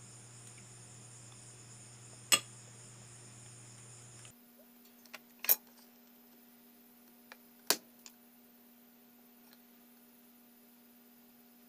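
A few sharp metallic clicks and taps of small hand tools such as tweezers on a phone circuit board, three of them louder than the rest, over a faint steady electrical hum that changes pitch about four seconds in.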